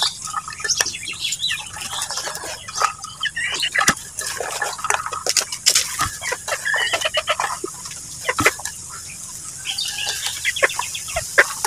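Chickens clucking in short broken calls, mixed with scattered sharp clicks and knocks.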